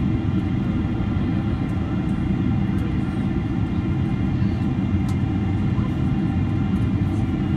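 Boeing 767-300 passenger cabin on final approach: steady low rumble of airflow and engines, with several steady engine whine tones above it.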